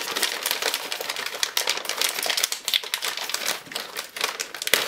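Thin clear plastic bag crinkling as it is handled, with the plastic push-in clips inside clicking and shifting against each other in a rapid run of small clicks.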